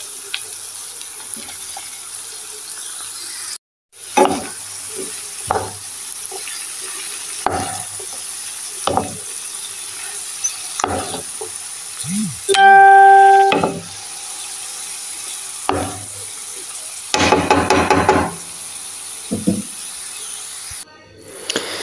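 Chopped mushrooms, bacon, onion, garlic and red pepper frying in a pan with a steady sizzle, stirred with scrapes every second or two. About halfway through a loud steady tone lasts about a second, and a few seconds later comes a louder, harsher stretch of about a second.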